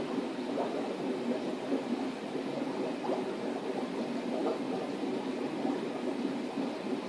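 Steady bubbling and rushing of water from air-driven aquarium sponge filters in a discus tank, a continuous fizzing texture with no clear rhythm.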